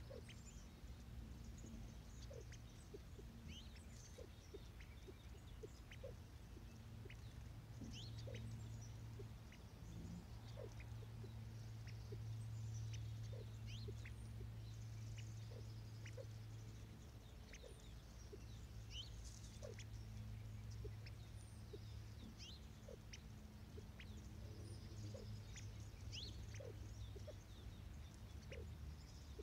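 A pair of California quail pecking at birdseed on the ground close by, making scattered small ticks at an irregular pace, with a low steady hum underneath.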